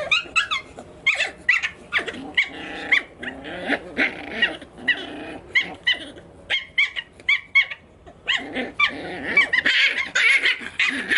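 Puppies play-fighting, barking over and over in short, high-pitched yaps that come several times a second.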